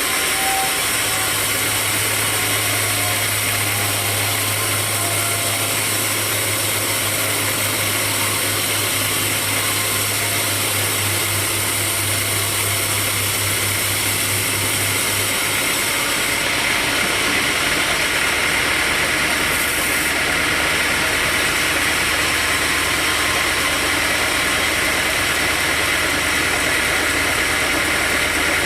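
Sawmill machinery running steadily, an engine-like drone with a hissing, whining top. A low steady hum underneath stops about halfway through while the rest runs on.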